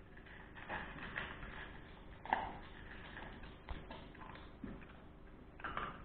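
Russian-European Laika puppy eating dry kibble from a steel bowl: faint, irregular crunches and clinks, with one sharper clink about two seconds in.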